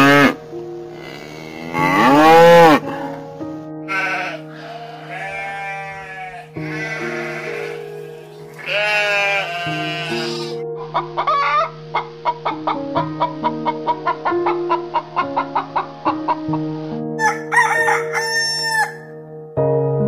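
A string of farm-animal calls over background music: a loud long call about two seconds in, sheep bleating through the middle, a rapid run of short calls, and a rooster starting to crow near the end.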